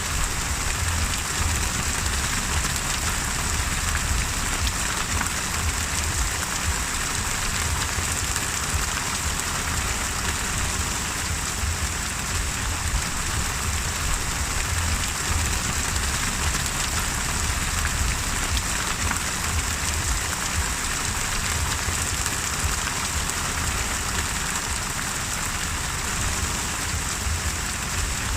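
Steady rain falling without a break, with a low rumble underneath.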